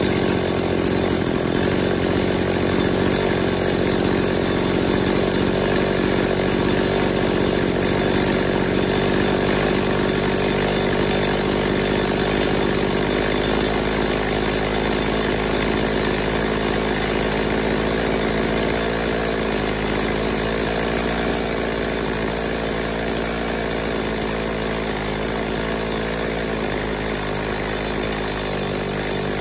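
Two-stroke chainsaw engine idling steadily while its low-speed mixture needle is turned to find peak idle RPM during carburetor tuning. It gets slightly quieter about three-quarters of the way through.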